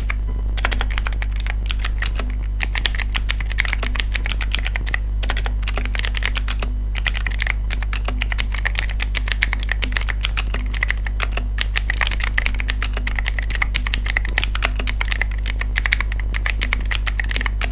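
Fast, continuous typing on an Aula F3018 mechanical keyboard with clicky blue switches: a dense run of key clicks with a few brief pauses. A steady low hum sits underneath.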